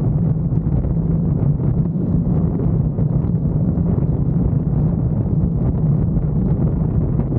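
Steady low rumble of a car driving on the road, with wind buffeting the microphone.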